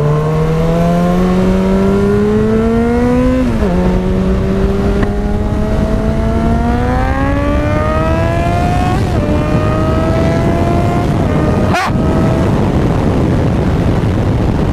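2009 Yamaha FZ6R's inline-four with a Hindle exhaust accelerating hard, its pitch climbing through the gears with upshifts about 3.5, 9 and 11 seconds in. Wind noise rises with speed, and near the end the engine fades under it.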